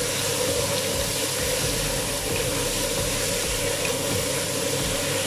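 Chicken pieces sizzling steadily in a hot wok as they are stirred with a wooden spatula, over a steady low hum.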